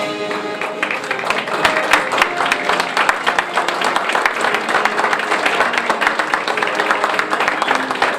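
A crowd applauding over music. The clapping swells to a dense, loud patter about a second in and continues while the music plays underneath.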